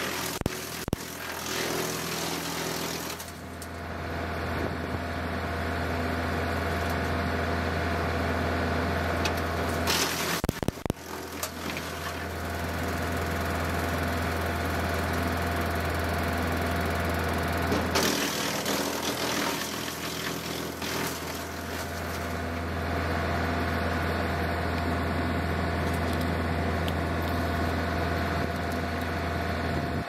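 John Deere 2038R compact tractor's diesel engine running steadily under PTO load, driving a Frontier WC1105 three-point wood chipper. Cedar limbs crack and crunch through the chipper in short spells near the start and again about ten seconds in.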